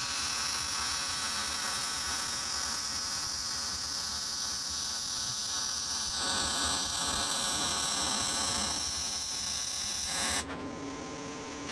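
Wire-feed (MIG) welding arc, a steady crackling buzz as a bead is laid on steel; the arc stops about ten seconds in.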